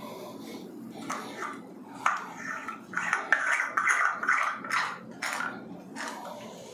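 Light metal clinks and scraping as a chrome wall-mixer cover flange is worked by hand over a threaded pipe leg against the wall tiles, then pulled off again.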